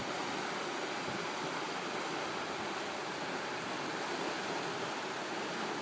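Fast-flowing river water rushing steadily, the current running high and strong.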